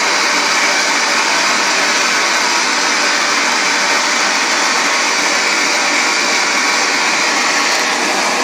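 LPG gas torch burning with a steady hiss, its flame heating a boiler joint up for silver soldering.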